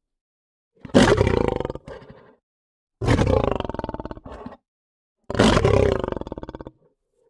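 Lion roaring: three deep calls about two seconds apart, each starting loud and fading over about a second and a half.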